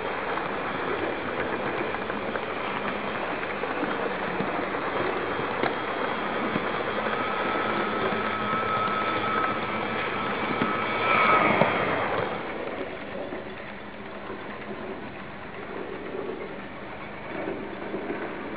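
Electric model train running on its track with the camera aboard: the rolling rattle of small wheels on the rails, with a thin steady motor whine in the middle. It swells louder around eleven seconds in, then turns quieter after about twelve seconds as the train comes to rest.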